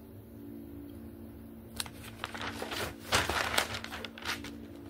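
Paper pages of a spiral-bound notebook being turned and handled: a run of rustling and crinkling starting about two seconds in, loudest around three seconds in. A faint steady hum runs underneath.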